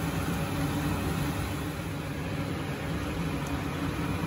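Steady low hum with a hiss over it, even throughout, with no distinct knocks or clicks.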